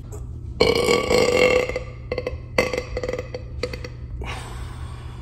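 A man burping loudly twice, the second burp rattling, then breathing out.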